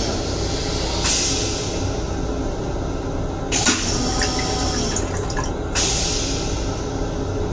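Metro-North M7 railcar toilet flushing. A hiss of rinse water sprays into the stainless steel bowl about a second in and fades, a sharp clunk of the flush mechanism comes near the middle, and a second hiss of rinse water starts near the end. A steady low rumble runs underneath.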